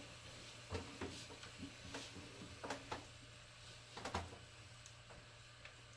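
Faint scattered clicks and taps of small plastic toy pieces being handled, a few light knocks several seconds apart.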